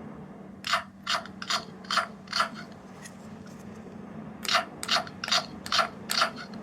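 A small capsule-toy sound gadget playing a rasping, scraping sound effect: two runs of five short strokes each, about two and a half a second, the second run starting about four and a half seconds in, over a steady low hum.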